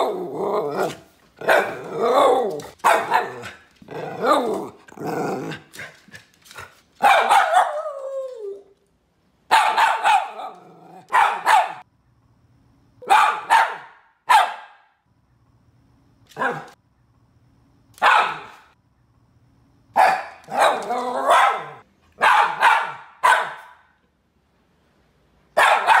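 Poodle barking repeatedly: a fast run of barks for the first several seconds, one longer bark that falls in pitch about eight seconds in, then single barks and quick pairs every second or two.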